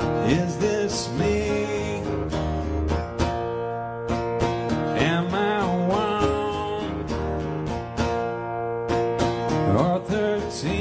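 Two acoustic guitars played together in a live song, with a man singing a few drawn-out phrases over them.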